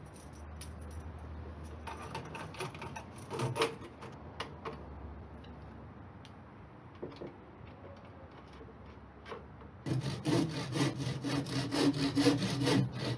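Light clicks and handling of a metal duct clip on the fan's ductwork. About ten seconds in, a handsaw starts cutting a wooden batten with quick, regular strokes; the sawing is the loudest sound.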